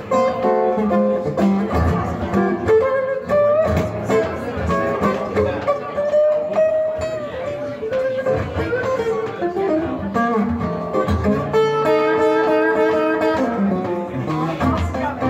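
Acoustic guitar playing an instrumental blues break: picked single-note lines, with some notes bending in pitch and a few held notes near the end.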